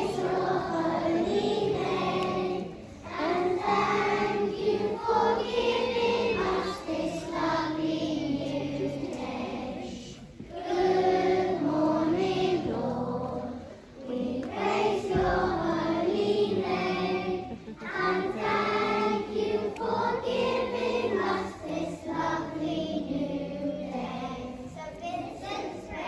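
A group of young children singing a morning prayer hymn together, in phrases with short breaths between them.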